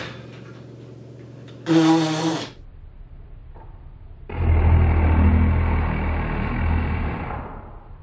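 A short voice-like sound about two seconds in, then a loud low rumbling noise that starts abruptly about four seconds in, lasts about three seconds and fades out near the end.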